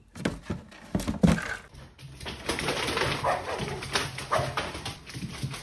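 A few sharp knocks in the first second and a half, then a small dog yapping and whining in quick succession.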